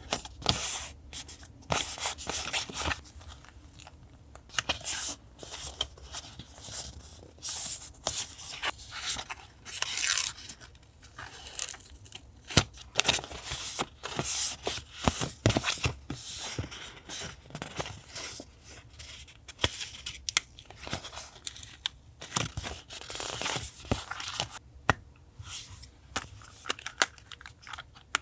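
Paper being torn and handled for a journal collage, in irregular crisp rips and rustles with small clicks throughout.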